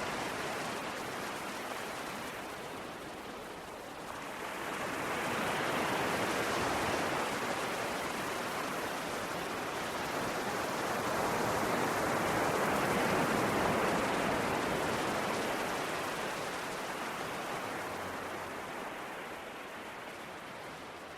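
Ocean surf: a steady rush of waves that swells about four seconds in and again near the middle, then slowly ebbs.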